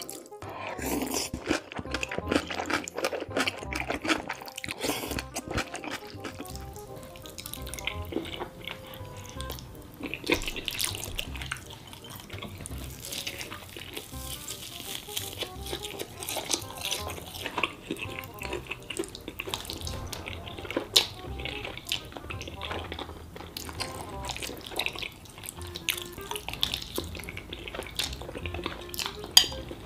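Close-up wet eating sounds: chewing grilled meat and slurping sauce-coated black bean noodles (jjajangmyeon), with smacking and many small clicks, over background music.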